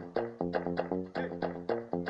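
Background music on plucked strings, a quick, steady run of notes over a bass line.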